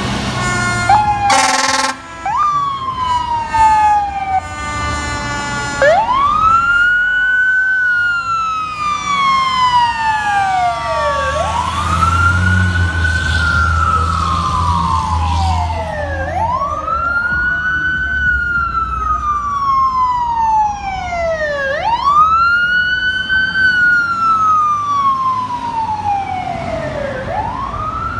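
Fire engine air horn blasting for about two seconds, then the siren wailing: each cycle rises quickly and falls away slowly, about every five and a half seconds, with a second siren overlapping in places.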